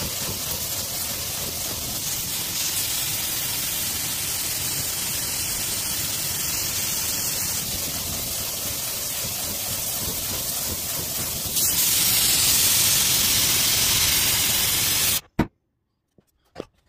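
Gas torch flame hissing steadily while heating a sand-filled steel exhaust pipe for bending; it gets louder about three-quarters of the way through, then cuts off suddenly, followed by one sharp click and a couple of faint ones.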